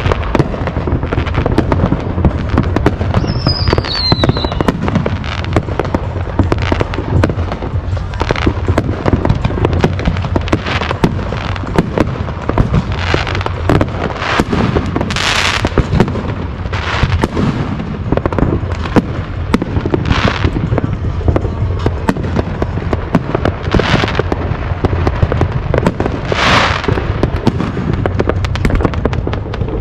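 Fireworks going off continuously: a dense run of overlapping bangs and crackles. A falling whistle comes a few seconds in, and several hissing bursts follow later on.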